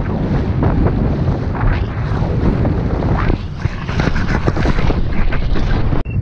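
Wind buffeting the microphone, mixed with shallow sea water splashing and sloshing around the legs of a wading angler.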